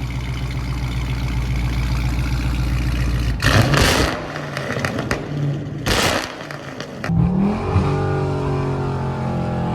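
Dodge Charger Scat Pack's 392 HEMI V8 running through catless mid pipes and a muffler delete, loud and raspy. It holds a steady note, then gives two brief loud blasts about two and a half seconds apart, and its pitch climbs steadily near the end as the car accelerates.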